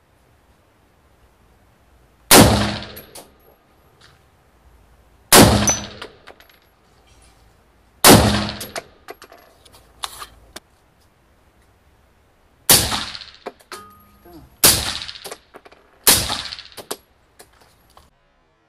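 Six rifle shots from an HK MR223 in 5.56/.223, fired in two groups of three with a pause between, each a sharp crack with a ringing echo off the range. The last three are fired through a Brügger & Thomet Rotex V suppressor.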